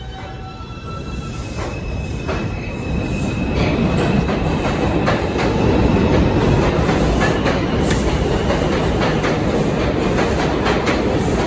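New York subway 2 train (R142 cars) accelerating away from the platform. Its traction motors give a whine that steps up in pitch over the first few seconds. The wheels then rumble and clatter over the rail joints, growing louder for about four seconds and then holding steady.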